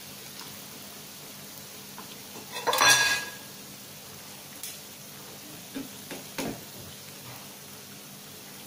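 Battered chicken wings deep-frying in plenty of oil, a steady low sizzle. About two and a half seconds in comes one loud clatter against the pan, followed by a few light clinks.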